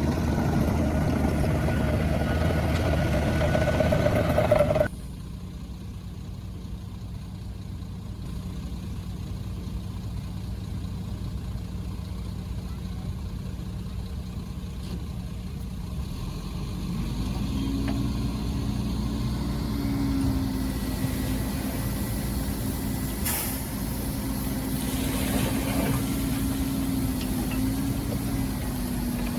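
Heavy diesel earthmoving machinery running. A loud engine with a rising whine stops suddenly about five seconds in and leaves a lower, steady engine idle. From a little past halfway, an engine revs up and holds a higher note.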